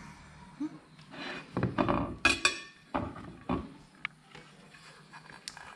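Cutlery knocking and scraping on a dish: a cluster of knocks in the middle with one brief ringing clink, then a few single taps.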